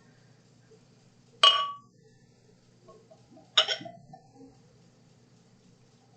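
Glass clinking twice, about two seconds apart, each strike ringing briefly.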